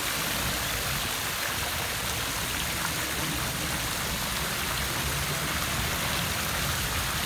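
Water running steadily into a fountain basin as it is being filled, an even splashing hiss.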